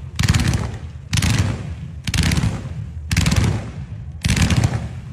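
Multi-shot aerial fireworks (sky shots) firing in volleys: a burst of rapid crackling bangs about once a second, each dying away before the next.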